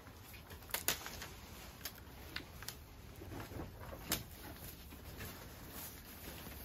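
Handling and peeling of a paper backing sheet from adhesive Velcro plate-holder strips: faint rustling with a few short, sharp crackles of the paper, the sharpest about a second in and again around four seconds in.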